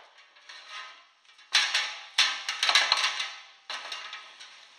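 Mild steel sheet scraping and clattering on a steel-topped bench as it is slid back into a hand-lever notcher. The sound is loudest from about a second and a half in, for about two seconds, with a few lighter knocks after.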